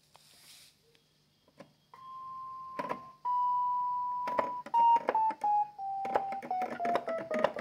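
Keyboard notes from a MIDI keyboard sounding through a Bluetooth speaker. After a quiet start with a few knocks, two long high notes are held, then single notes step down the scale one by one, quickening near the end.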